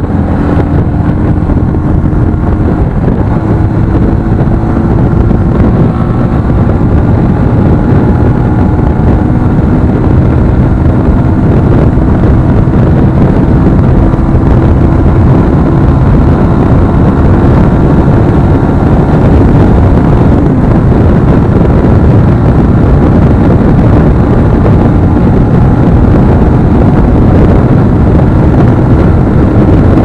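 Motorcycle at highway speed, about 100 km/h and slowly gaining, its engine hum rising gently in pitch under a heavy rush of wind on the microphone.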